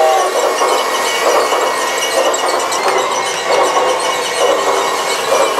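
Battery-operated G-scale toy train running along its track close by: a steady mechanical noise from the motor and wheels.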